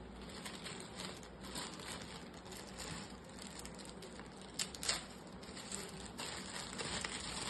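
Light handling noise as a microphone's anti-vibration shock mount is turned over in the hands: scattered small clicks and rustles, with two sharper clicks a little past halfway.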